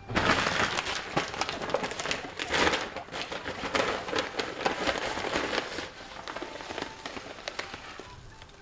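Guinea pig rustling through loose hay and bedding, a dense crackling with many small clicks that fades over the last few seconds.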